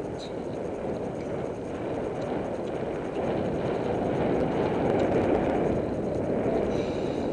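Wind noise and tyre rumble picked up by a ContourHD action camera's microphone, taped over with plastic film tape to cut the wind, while riding a road bike at speed on asphalt. A steady dull rushing that grows a little louder about three seconds in.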